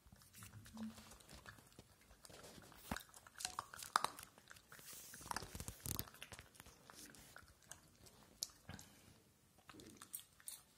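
Pit bull puppy eating dry kibble from a stainless steel bowl: irregular crunching and chewing, busiest in the middle few seconds.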